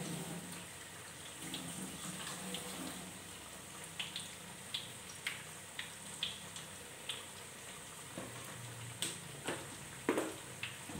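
Corn fritters deep-frying in hot oil in a wok: a steady sizzle with scattered sharp pops and crackles, a few louder ones near the end.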